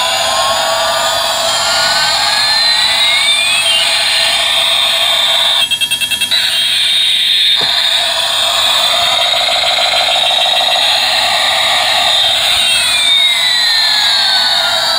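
Electronic jet-engine sound effect from a toy A380 airliner's small built-in speaker: a tinny whooshing tone that rises in pitch over a few seconds, holds, then falls again near the end. It stutters briefly about six seconds in.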